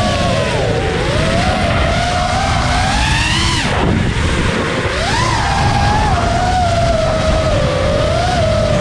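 FPV racing drone's electric motors and propellers whining, the pitch rising and falling with throttle: it climbs, drops sharply at about four seconds in, then rises again. Steady wind rumble underneath.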